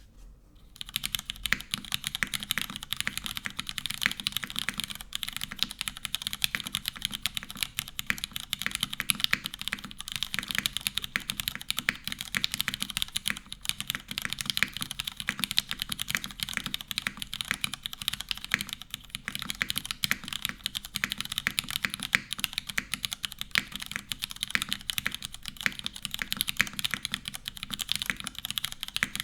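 Fast, continuous typing on a custom mechanical keyboard with stock Cherry MX2A Orange switches in a full aluminium plate with no foam dampening, keycaps clacking. The typing starts about a second in.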